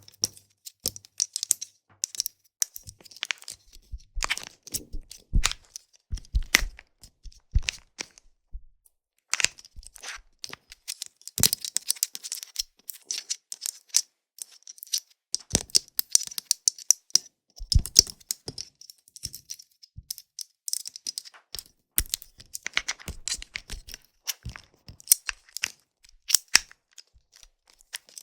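Plastic magic bracelet handled close to the microphone: irregular light plastic clicks and crackles in flurries, with brief pauses about 8 and 14 seconds in.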